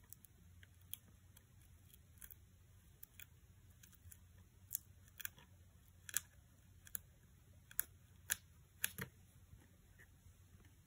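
Faint, scattered clicks and taps of the pointed tip of a Take Your Pick craft tool working along the edge of a clear window sheet on a cardstock panel, pushing foam adhesive back, with light handling of the card. The clicks come irregularly, a few louder ones in the second half.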